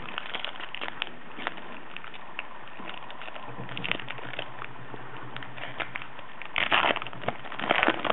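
Foil wrapper of a 2011 Topps Update baseball card pack crinkling and tearing as it is opened by hand. It makes scattered crackles and clicks, with two louder bursts of crinkling near the end.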